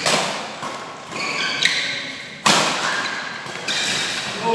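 Badminton rackets striking the shuttlecock during a fast doubles rally: sharp echoing hits, two loud ones about two and a half seconds apart with lighter ones between, and short high squeaks of court shoes on the floor.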